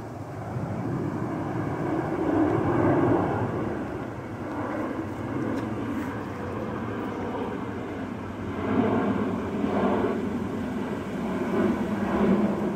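Jet airliner flying overhead: a continuous rushing engine noise that swells about two seconds in and again from about nine seconds on.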